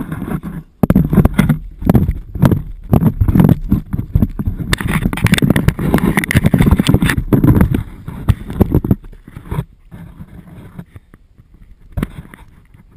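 Rapid knocking, scraping and rustling of a GoPro camera housing on a stick being jostled as a black Labrador plays with it, loud and dense for about nine seconds, then quieter, with one sharp knock near the end.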